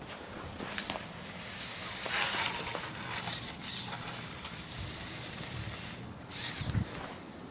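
Snow crunching and scraping as the plow blade of a motorized LEGO Technic Unimog pushes through it, over a faint steady hum from the toy's electric motors. A louder crunch comes about six and a half seconds in.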